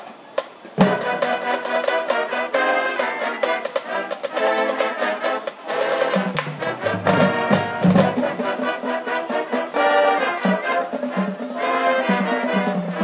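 High school marching band playing: after a few sharp clicks, the full band enters loudly about a second in, with brass chords over percussion, and plays on.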